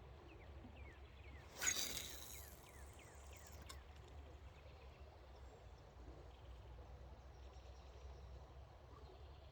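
A fishing rod being cast: a sudden whoosh about a second and a half in that fades over about a second, then a single sharp click about two seconds later.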